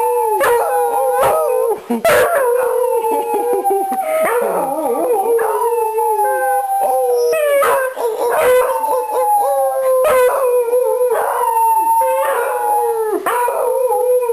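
Several beagles howling together in a chorus: long, overlapping howls that each slide slowly down in pitch, with a new howl starting every second or two.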